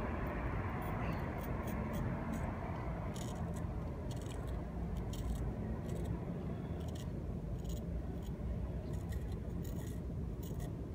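LC200N steel edge of a Spyderco Native 5 Salt knife shaving arm hair: short, crisp crackles in irregular clusters as the hairs are sliced, a shave test of the edge's sharpness. A steady low rumble runs underneath.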